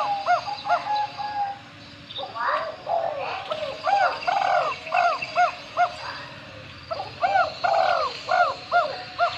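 Bird calling in two runs of short, arching notes, about two a second, with brief pauses between the runs.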